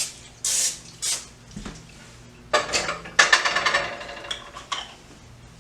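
Aerosol olive oil cooking spray hissing in two short bursts, then a clatter of hard knocks with a brief ringing from about two and a half seconds in as the baking dish or can is handled.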